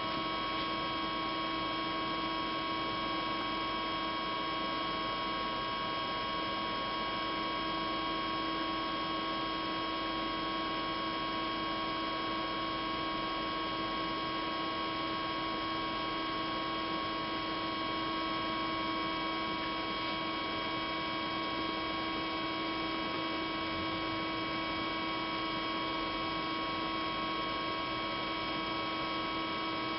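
Steady electrical hum made of several constant tones, unchanging in pitch and level.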